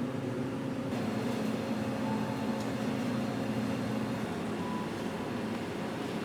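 A steady low engine hum, with two short faint beeps about two and four and a half seconds in.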